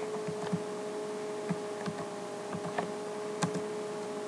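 Scattered keystrokes on a computer keyboard as a command is typed, over a steady hum of several tones from a loud computer.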